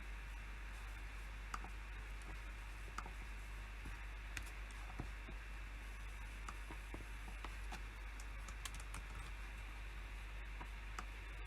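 PC keyboard typing: sparse, irregular keystrokes, a few clicks spaced out across the stretch, over a steady background hiss and low hum.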